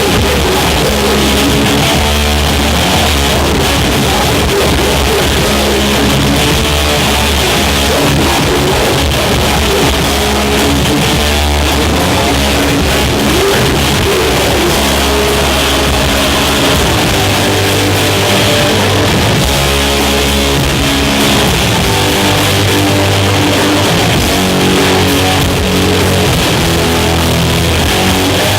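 Loud live rock band playing, with distorted electric guitar over bass and drums.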